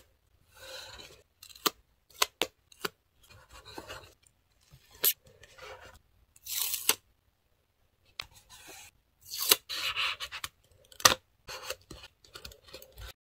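Close-up paper-crafting sounds: paper cutouts and stickers rustling, peeling and being pressed onto a journal page, with sharp ticks and taps from a fine-tipped tool. They come in short, irregular bursts, with a silent gap of about a second midway.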